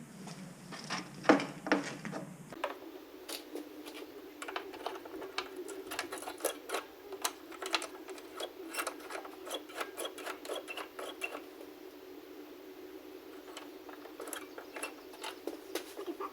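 A run of light clicks and taps, several a second, over a steady low hum. The background changes suddenly about two and a half seconds in.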